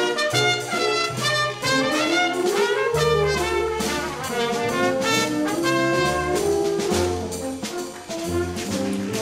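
A solo trumpet plays the melody over full orchestral accompaniment in a waltz, with a moving bass line beneath.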